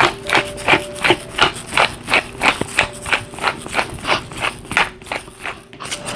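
Black pepper grinder being twisted over roasted potatoes, giving a steady run of short grinding crunches at about three a second.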